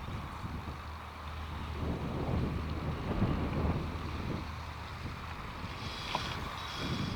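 Wind noise on the microphone, with gusty low rumbles and a steady low hum underneath that stops about five seconds in.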